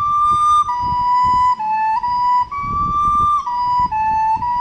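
Soprano recorder playing a slow tongued melody of held notes on B, D and A (si–re–si–la–si–re–si–la–si) in G major pentatonic, each note cleanly articulated with the tongue; the last B is held.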